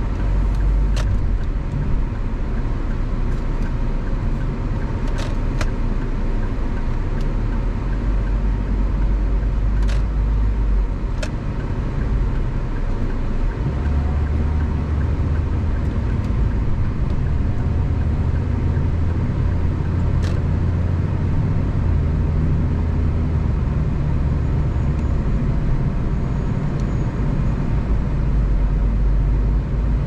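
A car being driven along a road: a steady low rumble of engine and tyres, with a few sharp clicks scattered through it.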